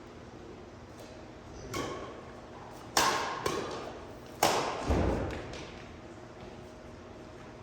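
Badminton rally: rackets striking a shuttlecock in a run of sharp cracks, the loudest about three and four and a half seconds in, with a low thud just after the last hit.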